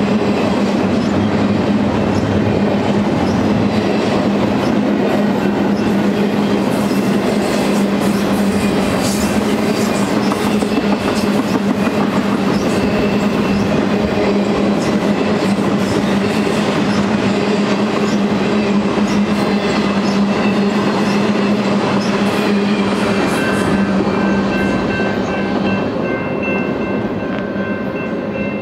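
Double-stack intermodal freight train's container-laden well cars rolling past, a steady loud run of steel wheels on the rails. It eases off a little near the end as the last cars pull away.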